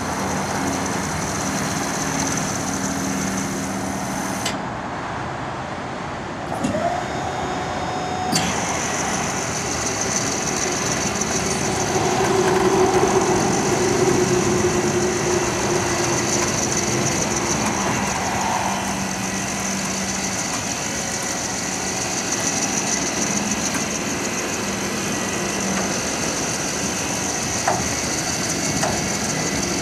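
Weightlifter truck lift running with a steady mechanical hum as it hoists a dump-bed hopper into a pickup's bed, loudest about halfway through, with two light clicks near the end.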